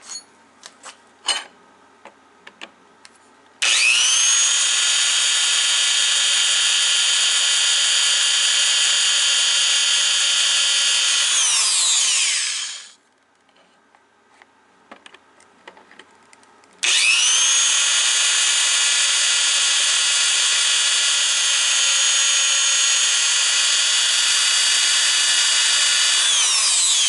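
Electric drill with its bit pressed against a steel plate, in two long runs at steady speed, each winding down with falling pitch when the trigger is let go; a few clicks and knocks come before the first run and between the two. The bit is not boring through the steel, which the owner puts down to the drill bit.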